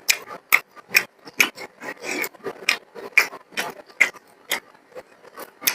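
Close-miked eating sounds: wet mouth clicks and lip-smacking while chewing, about two sharp smacks a second with softer chewing noise between.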